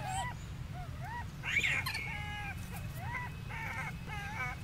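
Baby macaque crying out over and over in short, whimpering calls, about one every half second, while it is grabbed and held upside down by older monkeys. A louder, harsher cry comes about a second and a half in.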